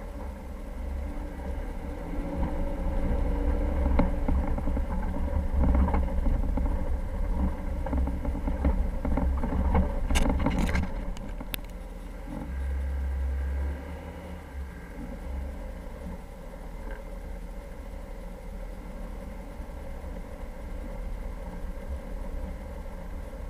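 Jeep Cherokee running over rough ground, a heavy low engine and road rumble with a few sharp knocks and rattles. It is louder through the first half, then eases to a quieter, steady run about two-thirds of the way in.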